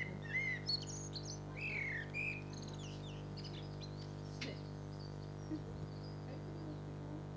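Birds chirping and twittering in quick, gliding calls, busiest in the first two or three seconds and sparser after, over a steady low hum.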